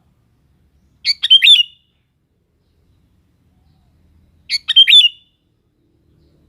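Sooty-headed bulbul singing two short phrases of quick notes, about three and a half seconds apart, each under a second long.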